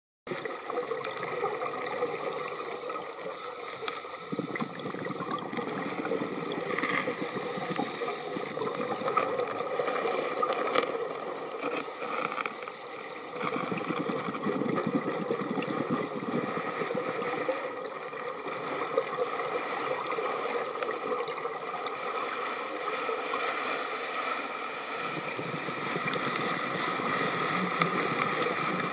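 Underwater sound of a scuba diver's regulator, heard through a camera housing: a steady rushing of bubbles that swells and fades in slow breathing cycles, with a brief hiss of inhalation between them.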